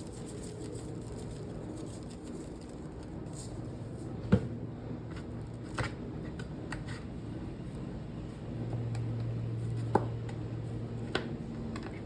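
Kitchen handling noises during food preparation: a few sharp clicks and knocks, the loudest about four seconds in, over a low steady hum that grows a little louder for a few seconds after the middle.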